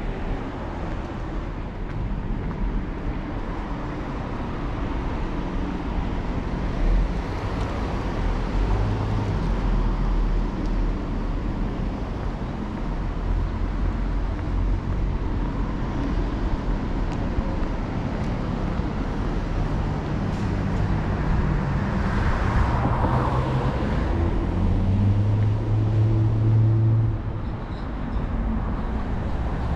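Road traffic on a city street: a steady rumble of car engines and tyres, with passing vehicles growing louder about two-thirds of the way through.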